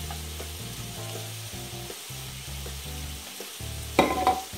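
Chicken sizzling in a frying pan, with a sharp clink about four seconds in.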